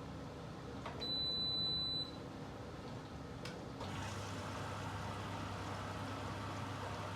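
Washing machine being started: a click, then a single high beep lasting about a second. Two more clicks follow, and a steady low hum and hiss begin as water starts to run into the machine.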